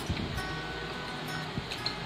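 Soft background music with held notes.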